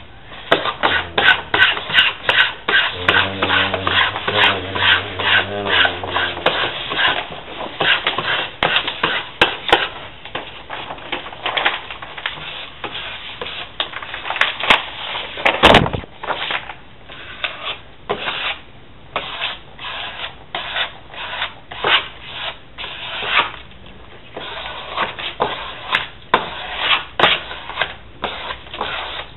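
Self-adhesive wall mural panel being rubbed down against the wall by hand, quick repeated rubbing strokes as it is smoothed on. A louder single scuff about halfway through.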